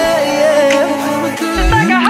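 Pop song with a male lead vocal over a dense backing track. Near the end a deep bass note swoops sharply upward.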